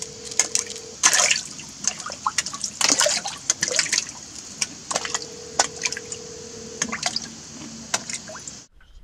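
Small fish splashing and smacking at the water surface as they snap at bait beside the boat's float, a run of quick sharp splashes and drips.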